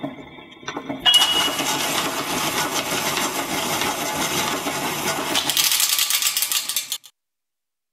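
Player piano's paper music roll rewinding at speed after the song ends: a steady mechanical rattling whir that starts about a second in and cuts off suddenly near the end.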